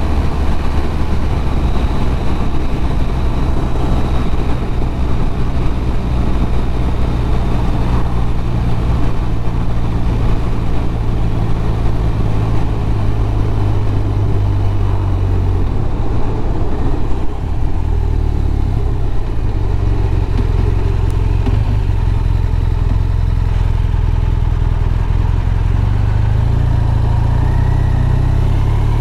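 BMW R1200RT motorcycle's flat-twin boxer engine running on the road, with wind rush. The engine note shifts about halfway through as the bike slows from cruising speed to a crawl.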